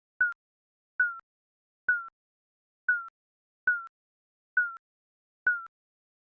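Digital countdown timer beeps: short single electronic tones with a slight downward dip in pitch, repeating about once a second, seven in all, with silence between.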